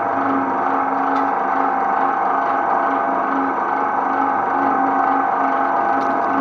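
Twin-shaft shredder running empty: a steady motor and gearbox hum with a constant whine from the turning cutter shafts. A few faint ticks near the end as a plant leaf reaches the blades.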